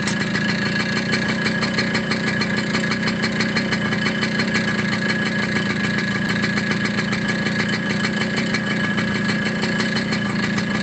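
Small motorcycle engine idling steadily, its firing pulses even and unbroken.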